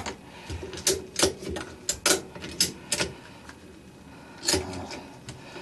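Ratchet strap being cranked tight: a run of sharp clicks from the ratchet, a short pause, then a few more clicks. The strap is being tensioned to pull a stuck wash plate off the washer's shaft.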